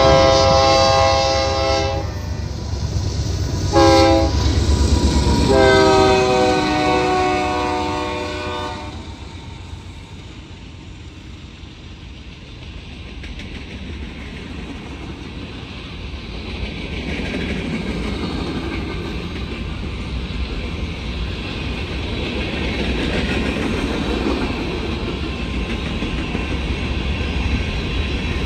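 Union Pacific diesel locomotive sounding its air horn: a long blast, a short one about four seconds in, and another long one that bends down slightly in pitch, over the low drone of the engine. After that, freight hopper cars rolling past with a steady rumble and wheel clatter.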